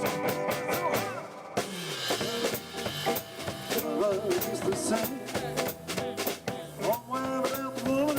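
Live jazz trio playing an instrumental passage: an upright bass walking under a melody instrument, with a drum kit played with brushes keeping a steady beat.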